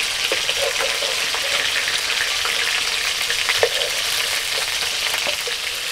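Fish frying in hot mustard oil in a kadai: a steady sizzle, with a few short clicks of a metal spatula against the pan, the sharpest a little past halfway, as the fried fish are lifted out.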